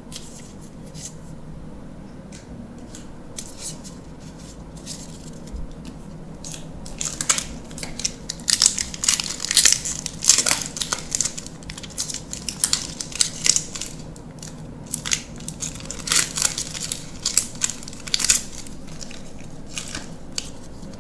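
Plastic-foil booster pack wrapper being torn open and crinkled by hand. There are a few faint clicks at first, then a dense run of sharp crackles starting about a third of the way in and lasting roughly ten seconds.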